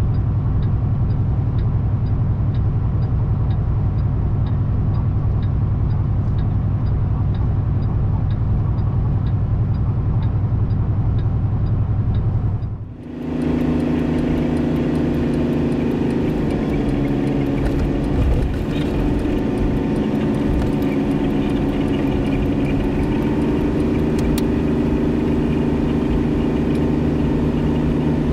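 Tanker truck's diesel engine and road noise heard from inside the cab while driving slowly, with a faint regular tick about twice a second. About 13 s in, the sound cuts abruptly and the engine drone carries on higher in pitch.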